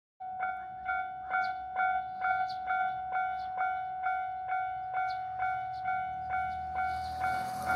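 Japanese level-crossing alarm starting up and ringing its 'kan-kan' tone, about two strikes a second. Near the end the noise of an approaching train begins to rise underneath it.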